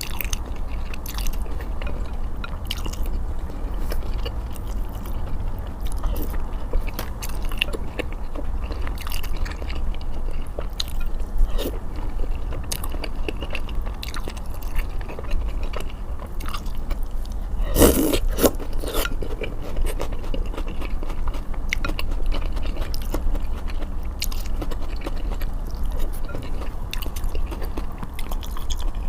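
Close-miked eating of malatang: wet chewing and frequent sharp mouth clicks over a steady low hum, with one louder burst about eighteen seconds in.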